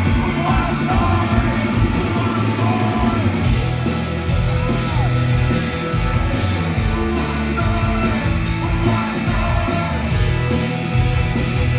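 Live rock band playing loudly, with electric guitars, bass and drums under a sung vocal line, the crowd shouting and singing along. From about three and a half seconds in a steady drumbeat comes through more sharply.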